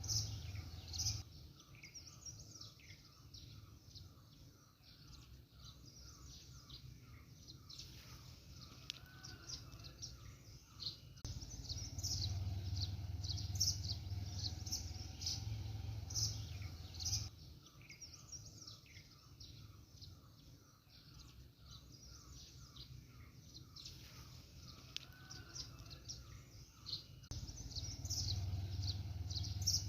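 Small birds chirping and twittering over a low steady background noise that comes and goes, with a run of evenly repeated mid-pitched notes in the quieter stretches. The same stretch of birdsong repeats about every 16 seconds, as from a looped nature recording.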